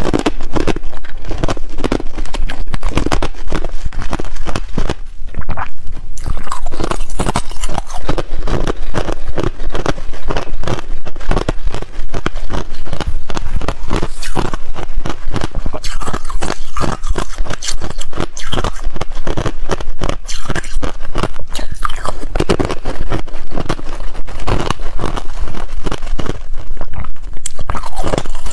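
Thin clear ice shells bitten and chewed close to a clip-on microphone: a steady run of sharp crunches and cracks.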